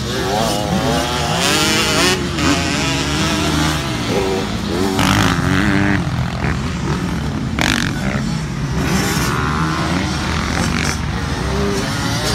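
Several motocross dirt bikes running on a track, their engines revving up and down as the riders accelerate and back off, with overlapping engine notes from more than one bike.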